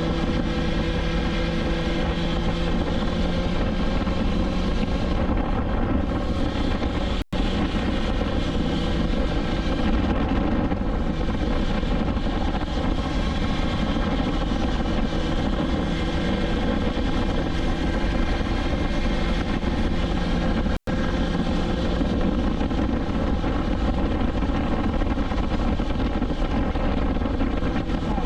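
BMW S1000XR inline-four motorcycle engine running at steady cruising revs, with wind rumble beneath. The sound drops out for a split second twice.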